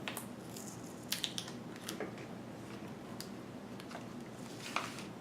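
Masking tape and protective plastic film being peeled off a new laptop LCD panel: faint irregular crackles and small ticks, a few a second at most.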